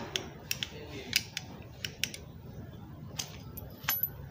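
Irregular light metallic clicks and ticks as piston rings are worked onto a Suzuki Ertiga gasoline engine piston by hand, with a sharper cluster of clicks near the end.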